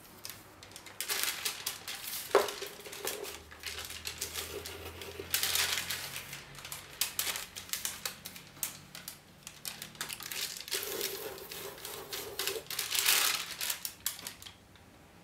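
Nib pen scratching over thin paper in quick clusters of strokes, with the paper rustling and crinkling as it is lifted and handled.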